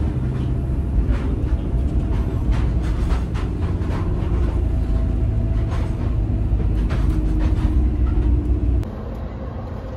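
Passenger train running: a steady low rumble with rattling and clattering from the wheels and carriage. About nine seconds in it drops to a quieter, steadier sound.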